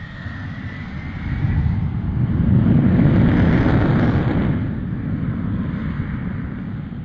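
Jet aircraft flying past: a loud rumble that builds to a peak about three seconds in and then slowly fades away, with a thin high whine that dies out about a second and a half in.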